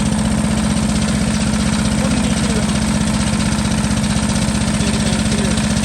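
Engine of a drilling rig running steadily at constant speed, with an even, rapid low pulsing and a strong steady hum.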